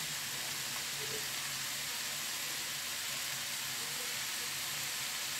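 Ground meat and diced vegetables sizzling steadily in a frying pan.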